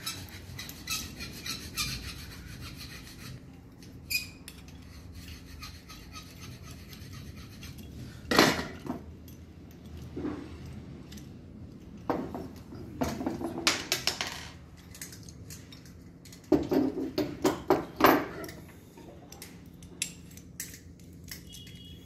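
Metal clicks, scrapes and rubbing as a quarter-inch copper pipe is slid into a flaring tool's clamp bar and the tool is handled. The sounds come in short scattered bursts, busiest about eight seconds in and again around thirteen and seventeen seconds in.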